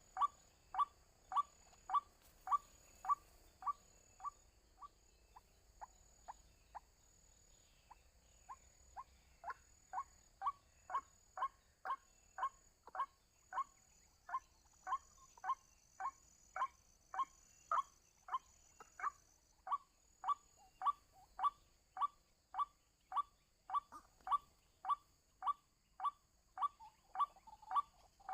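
White-breasted waterhen (ruak-ruak) giving its monotonous call: short notes repeated about twice a second, weakening a few seconds in before growing strong again.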